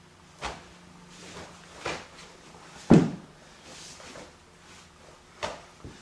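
Sharp slaps and smacks from the hand strikes and checks of a karate kata, five in a few seconds, the loudest and heaviest about halfway through, over a faint steady hum.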